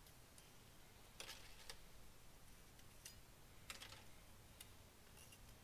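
Near silence with a few faint, scattered clicks and ticks from small engine parts being handled on a workbench.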